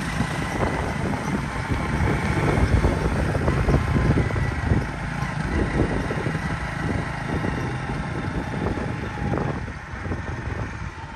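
Steady engine and road rumble of a moving vehicle, easing off a little near the end.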